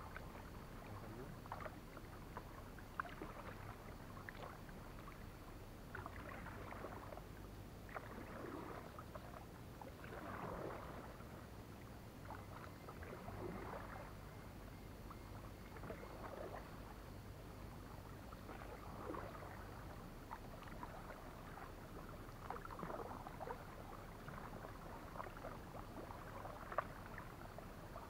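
Kayak paddle blades dipping into calm water and drawing through it, soft splashing strokes repeating about every two to three seconds.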